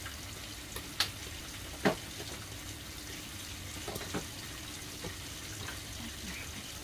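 Chicken pieces frying in a pan, a steady low sizzle, with a few sharp clicks, the loudest about one and two seconds in.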